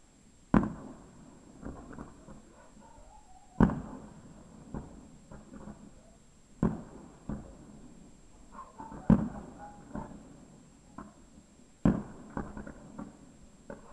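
Fireworks: aerial shells bursting with five loud booms about every three seconds, each trailing off briefly, and smaller pops and crackles between them.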